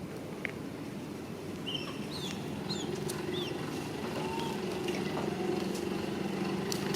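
Steady low outdoor background rumble with a scattered handful of short, high chirps and squeaks.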